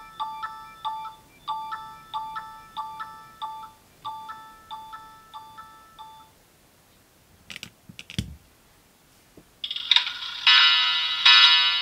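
Nokia N70 ringtones. A melody of quick bell-like notes, repeating in short phrases, ends about six seconds in. A few clicks and a low thump follow, then a denser, louder ringtone starts near the end.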